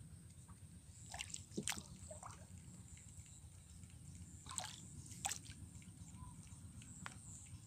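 Faint water drips and small sloshes around a small wooden boat, a few short sharp ticks scattered through, over a low steady rumble.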